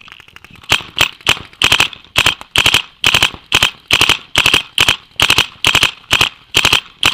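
Dye DM12 electronic paintball marker firing in rapid bursts of a few shots each, about two bursts a second, starting about a second in.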